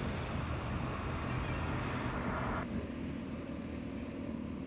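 Ashok Leyland Dost light goods vehicle running along the road, heard from inside the cab: a steady low diesel engine drone with tyre and road hiss, the hiss easing off about halfway through.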